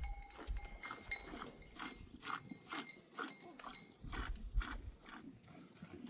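A flock of sheep and goats moving about, their bells clinking and clanking irregularly.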